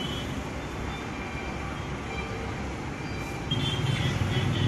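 Road traffic passing: a steady low engine rumble that gets louder about three and a half seconds in as a heavier vehicle goes by.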